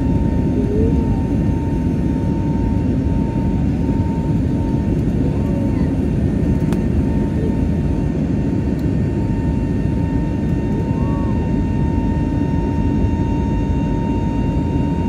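Airbus A320neo turbofan engine at climb power, heard from inside the cabin by the wing: a steady, even rumble with a steady high whine over it.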